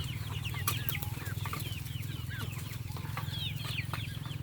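A flock of chickens clucking and calling, many short falling calls overlapping, over a steady low hum, with a few sharp clicks.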